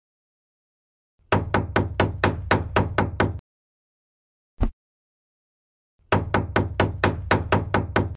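Small wooden mallet tapping miniature wooden stick posts down into a model base: a quick run of about ten sharp knocks, four or five a second, a single knock a little past the middle, then another run of about ten knocks near the end.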